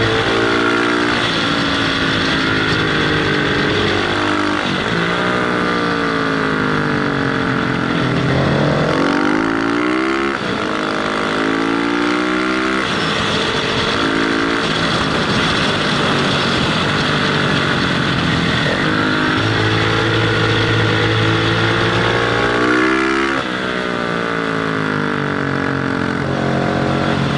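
Motorcycle engine heard from the rider's own bike, revving up and down as it accelerates and shifts gear, its pitch climbing and dropping several times, over steady wind rush on the helmet-mounted microphone.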